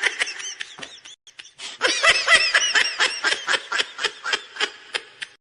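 A person laughing in quick repeated bursts, about five a second. The laugh breaks off briefly about a second in, then picks up again louder and fades out near the end.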